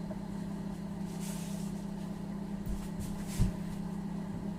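Microwave oven running with a steady low hum while the cookies bake, with a couple of faint knocks about three seconds in.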